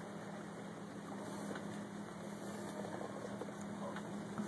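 Electric boat with a Bedini window-motor drive cruising slowly, at about 3 mph on 6 volts: a steady low hum over a constant rush of water and wind noise.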